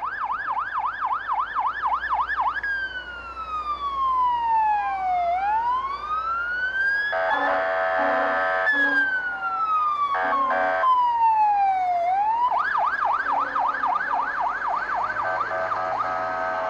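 Fire engine siren going by: a fast yelp, then a slow wail falling and rising, broken by two loud horn blasts about seven and ten seconds in, then back to the fast yelp.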